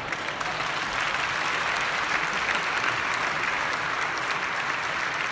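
Audience applauding: dense, steady clapping from a large crowd that swells during the first second and holds.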